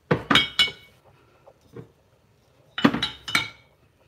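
Olive oil bottles clinking against one another as they are put away, in two short clusters of knocks with a brief ring: one just after the start and one about three seconds in.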